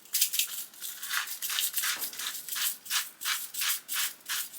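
Sea salt being dispensed over raw vegetables in a quick, even run of short gritty strokes, about three a second.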